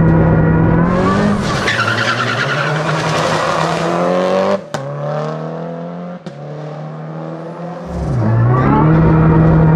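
Peugeot 308 Racing Cup's turbocharged four-cylinder engine pulling hard at full throttle, its pitch climbing, with a hiss of tyre noise for a few seconds. Near the end there is a drop in pitch at a gear change, and then it climbs again.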